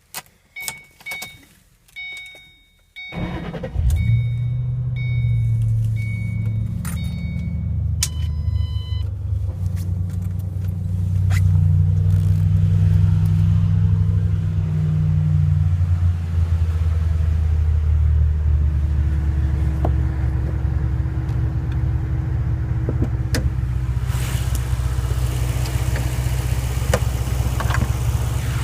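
2006 Mustang GT's 4.6L V8 is started: a few short dash chime tones, then the engine fires about three seconds in and settles into a steady idle, running a little higher for a few seconds midway. The owner reports a ticking noise and lost power after a loud pop, with no check engine light.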